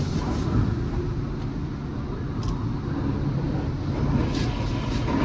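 Automatic tunnel car wash heard from inside the car's cabin: water spray hitting the windshield and body over a steady low rumble of the wash machinery, with a short burst of higher hiss about four seconds in.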